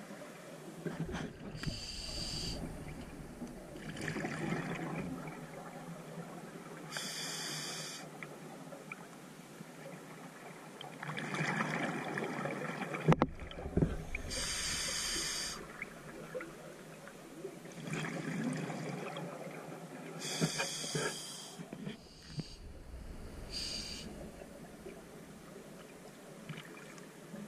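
Scuba diver breathing through a regulator underwater: a hiss on each inhale, then a rush of exhaust bubbles on each exhale, in a cycle about every six seconds. A single sharp click about halfway through.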